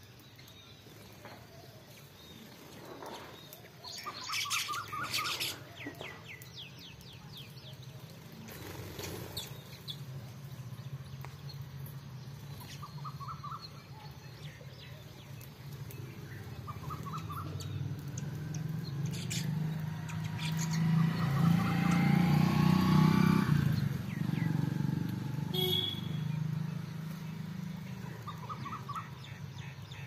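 House sparrows chirping in short quick series of repeated notes. Under them a low drone builds and is loudest about two thirds of the way through.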